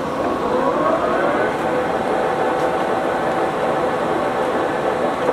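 Summit gap bed engine lathe running under power, its headstock gears whining steadily with the spinning chuck. The whine rises in pitch over the first second or so, as the spindle comes up to speed, then holds steady.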